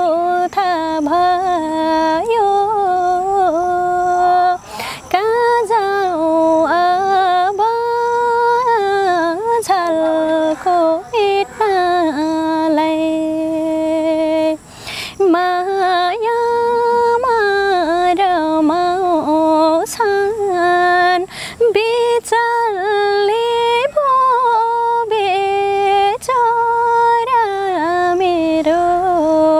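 A woman singing a slow Nepali song solo, with no instruments heard. The melody is a single line of long held, ornamented notes that slide between pitches, broken by brief pauses for breath.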